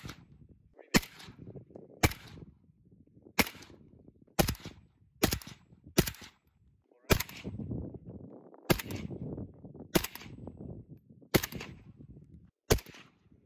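Suppressed AK-pattern rifle wearing a HUXWRX Flow 762 Ti can, fired semi-automatically: about a dozen single shots, roughly one a second, each a sharp report with a short tail.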